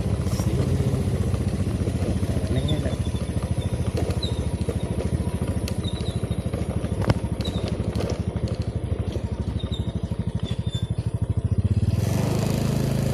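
Motorcycle engine running steadily at low speed, with one sharp knock about seven seconds in; near the end the engine note changes and grows louder.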